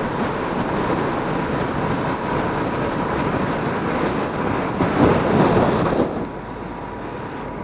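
Royal Enfield Bullet motorcycle riding at highway speed: steady engine and wind rush on the onboard camera's microphone. It swells about five seconds in, then drops quieter after about six seconds on a slower road.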